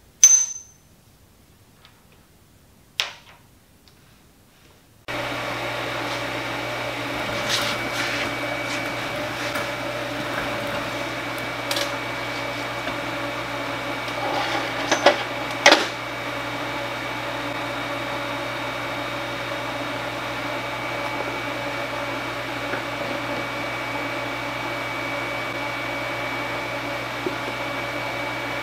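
A TIG welding machine switches on about five seconds in and runs with a steady hum and cooling-fan whir. A few light metal clinks of parts and tools set down on the steel welding table, near the start and again about halfway.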